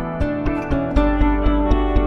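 Background music: guitar over a steady beat, with a deep bass coming in about a second in.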